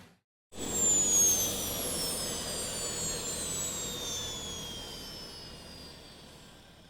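A jet-flyby style whoosh sound effect: it starts suddenly, with several high tones gliding downward together over a rushing hiss, then fades away over several seconds.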